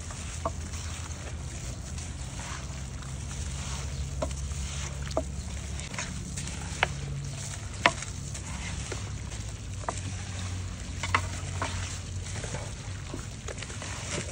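A gloved hand squishing and turning raw mutton, onions and spice paste in a large aluminium pot: wet squelching with scattered sharp clicks, the loudest about eight seconds in, over a steady low hum.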